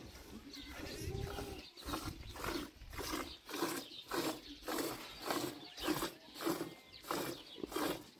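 Goat being milked by hand into a metal pot: rhythmic squirts of milk hitting the pot, about two a second, starting about two seconds in.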